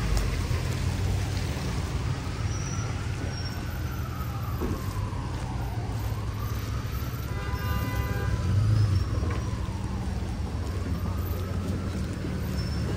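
Steady street traffic on wet roads, with a faint emergency-vehicle siren wailing slowly up and down over it. A short horn toot comes about seven and a half seconds in.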